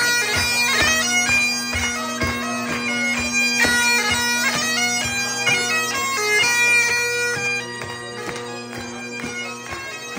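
Great Highland bagpipe playing a tune on the chanter over its steady drones. It grows quieter about seven and a half seconds in as the piper moves away.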